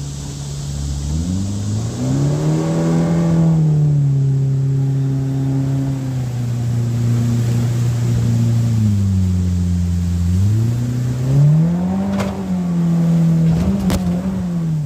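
Mercury jet-drive outboard motor running under way, revving up about a second in, easing off past the middle, then revving up again and easing near the end. Two sharp knocks come near the end.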